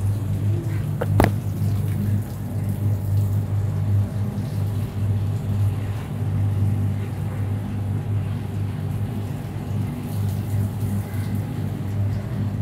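A steady low mechanical hum made of several stacked tones, like a motor or compressor running, with one sharp click about a second in.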